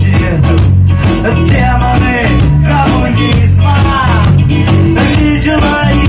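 A live ska-rock band playing loudly, with a steady drum beat, bass and a melodic line gliding over the top.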